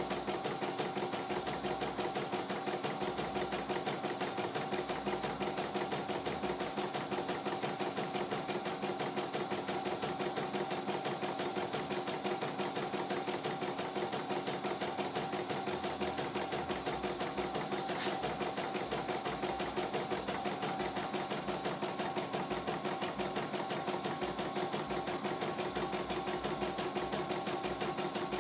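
CNY E900 computerized embroidery machine stitching out a design: a rapid, even needle clatter over the steady hum of its motor. One brief click partway through.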